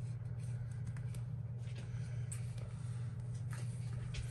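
Soft rustling and a few light clicks of clear plastic stickers being peeled and pressed onto a paper journal page, over a steady low hum.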